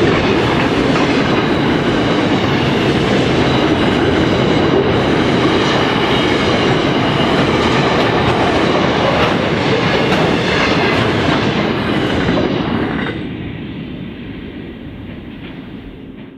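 Freight train wagons rolling past on the rails with a loud, steady rumble. About thirteen seconds in, the sound drops suddenly and then fades away.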